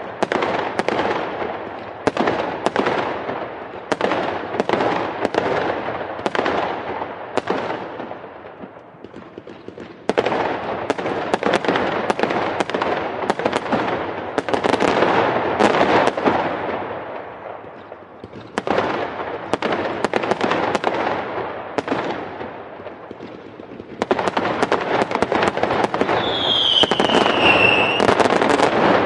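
Fireworks going off in dense volleys of sharp bangs and crackles, each volley trailing off in a rumble before the next starts. Near the end a whistling firework gives a falling whistle over the bangs.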